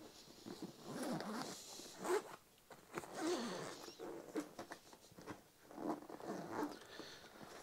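Zipper on a nylon backpack's main compartment being pulled open in a series of short drags with brief pauses between them.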